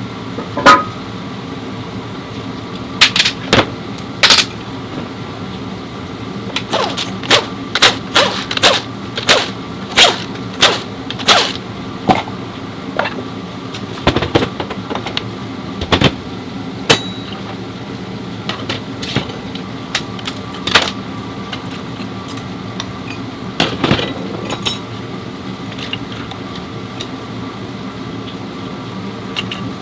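Sharp knocks and clanks, irregular and many, over a steady mechanical hum: the sound of hands-on work with tools and metal parts.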